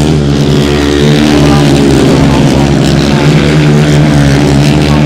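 Grasstrack solo racing motorcycles, 500cc single-cylinder methanol-burning engines, running hard round the track. A loud, steady engine note that wavers slightly in pitch as the riders broadside through the bends.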